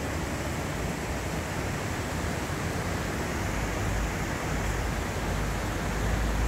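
Steady rushing noise, with the low engine rumble of an approaching car building over the last couple of seconds.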